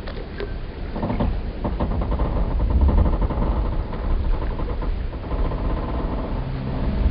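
Wooden boat timbers creaking in a long, drawn-out groan made of rapid stuttering pulses, over a continuous low rumble of water. A couple of light knocks sound just after the start.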